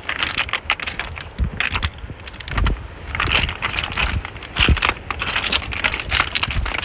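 Footsteps crunching irregularly over dry, stony coastal ground, with wind buffeting the microphone in a few low thumps.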